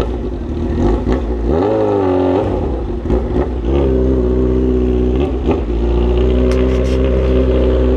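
Honda CB1000R's inline-four engine running loud at low revs, with a short rise and fall in revs about two seconds in, then holding a steady note to the end.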